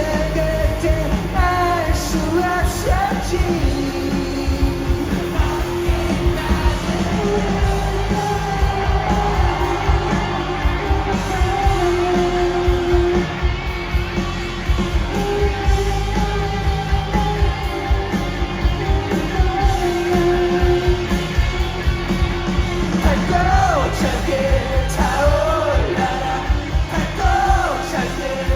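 Rock song with a voice singing a melody over a band with a steady, driving beat.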